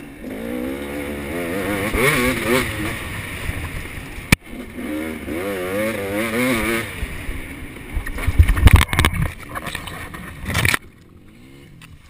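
KTM 250 SX two-stroke dirt bike engine revving up and down through the gears, heard from a helmet camera. About eight seconds in come loud heavy thuds and knocks as the bike crashes, and the engine sound cuts off suddenly near the end.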